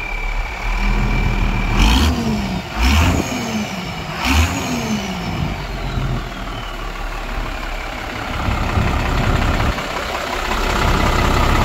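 Hino FM 260 truck's diesel engine being blipped three times in quick succession, each rev dropping back toward idle, with a high turbo-like whistle winding down, then running on at a fast idle.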